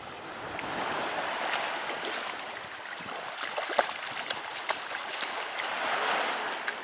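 Water washing and splashing, a steady rush that swells about a second in, with irregular sharp clicks and taps through the middle.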